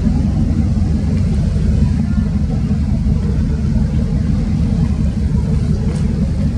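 Steady, loud low rumble of a boat's engine running underway.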